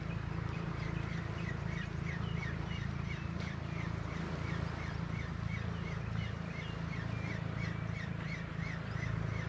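A bird chirping in a rapid, steady series of short rising-and-falling notes, over a steady low rumble.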